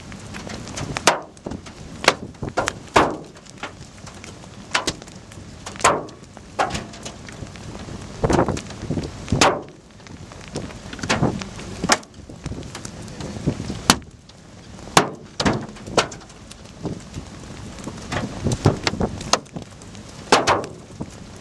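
Hailstones striking near the microphone: irregular sharp knocks and thuds, a few a second, over a steady rushing background.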